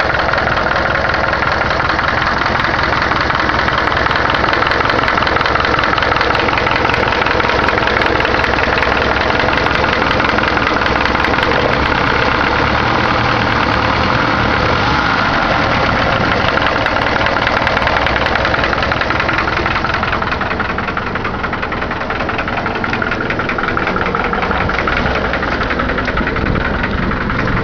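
Chevrolet Caravan four-cylinder engine running at idle, with a fast, even ticking over the engine note. This is the strange engine noise the owner cannot identify.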